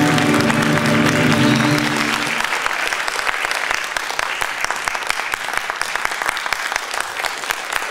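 Music holding its final chord, which ends a couple of seconds in, followed by a theatre audience clapping steadily.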